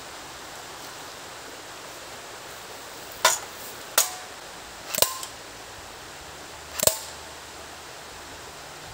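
CM.127 AEP electric airsoft pistol firing four single shots at a tin can, sharp clicks with irregular gaps in the second half, a couple followed by a short ring. The shots are too weak to pierce the can.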